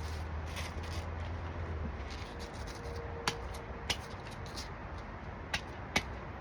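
Light handling noises: faint rustling over a low hum, then four short, sharp clicks or taps in the second half.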